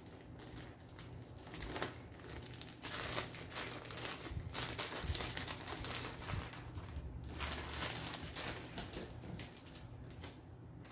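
Clear plastic bag of chunky Parmesan crinkling as hands work at it, a run of crackles loudest in the middle.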